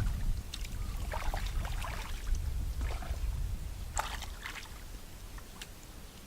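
Water sloshing and splashing, with short irregular splashes over a low rumble that fades after about four seconds.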